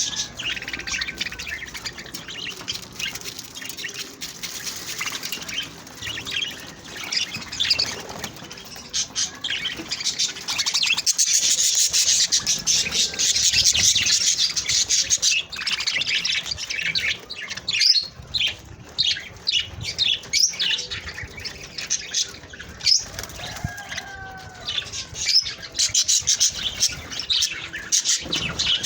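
A group of budgerigars (Australian parakeets) chirping and chattering continuously in dense, overlapping short calls, busiest about a third of the way in.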